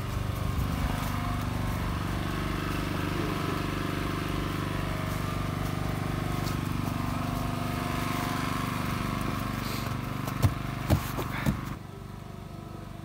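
A steady, low, engine-like drone holding one pitch, with a few sharp knocks near the end, then a sudden drop to a quieter background.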